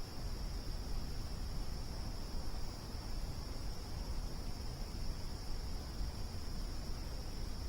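A steady, high-pitched insect chorus, like crickets, over the low, uneven noise of a burning campfire.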